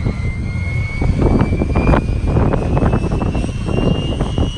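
Bell UH-1H Huey's turboshaft engine spooling up during start-up, a whine climbing steadily in pitch over a low rumble as the main rotor begins to turn.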